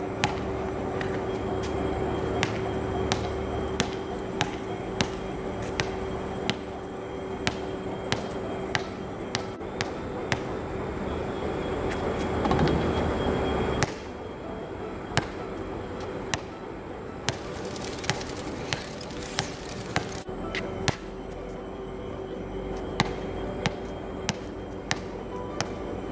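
Basketball bouncing on a hard outdoor court and striking the rim and backboard: sharp single thuds at uneven spacing, about one every second or two, over a steady hum.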